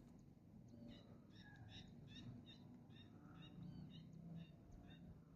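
Faint chirping of birds: a run of short, high call notes repeating one after another, over a low background hum.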